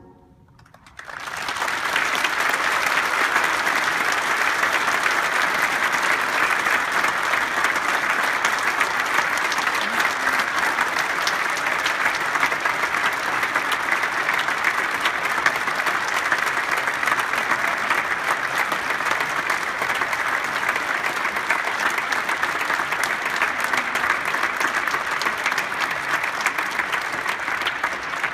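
A large audience applauding in a concert hall. The clapping starts about a second in, just after the choir's final chord dies away, and stays steady.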